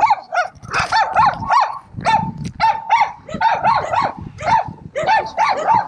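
A flock of snow geese calling: many short, high, arching honks overlapping in a rapid, continuous chatter.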